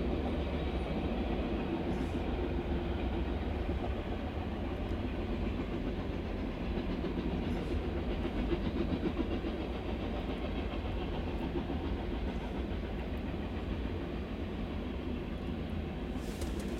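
Covered hopper cars of a freight grain train loaded with grain rolling past on the rails: a steady low rumble of steel wheels on track that fades slightly toward the end.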